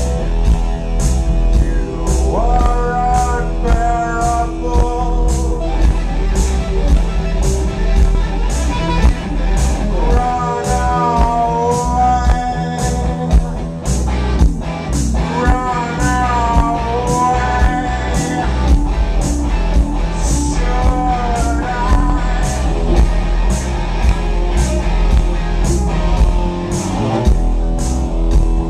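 Live rock band playing: electric guitar, bass and drums with a steady cymbal beat, loud and unbroken. A man's singing voice comes in and out in long, wavering phrases over the band.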